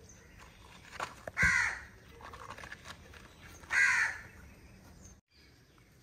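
Two harsh bird calls about two seconds apart, each lasting under half a second, with a few light sharp taps just before the first.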